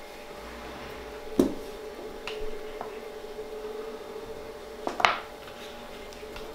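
Steel ring cutter and potato knocking on a plastic cutting board as the cutter is pressed through a potato and the pieces are set down: one sharp knock about a second and a half in, a few light taps, then two quick knocks about five seconds in, over a steady hum.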